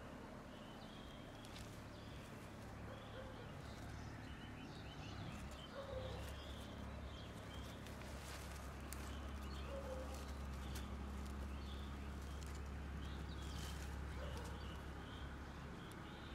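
Small birds chirping repeatedly in short notes, over a steady low rumble, with a few sharp clicks or rustles.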